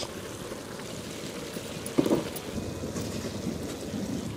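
Large pot of chicken biryani bubbling over the fire, the rice cooking before the pot is sealed for dum: a steady hissing patter, with a single knock about two seconds in.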